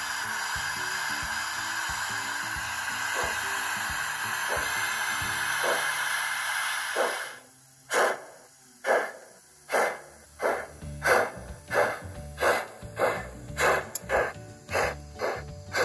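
A Black Five model locomotive's DCC sound decoder playing steam effects through its small onboard speaker. A steady hiss of steam runs for about seven seconds and stops. Then exhaust chuffs start slowly and quicken as the locomotive pulls away.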